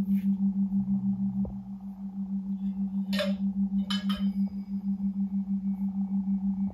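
Singing bowl ringing with a low steady hum that pulses quickly and evenly as it beats. Brief bright metallic clinks about three and four seconds in.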